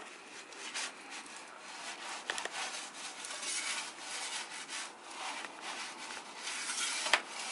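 Metal pizza peel scraping across the floor of a wood-fired brick oven as a pizza is slid in, a rasping rub that swells and fades several times, with a couple of sharp clicks.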